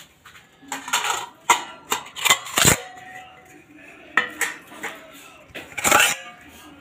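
Dishes and cutlery clattering: a string of clinks and knocks, the loudest about two and a half seconds in and another strong one near the end.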